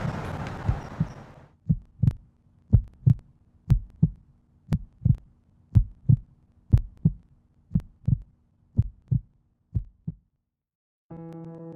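Heartbeat sound effect: regular pairs of low lub-dub thumps about once a second over a faint steady hum, while outdoor noise fades out at the start. The beats stop near the end, and guitar music comes in.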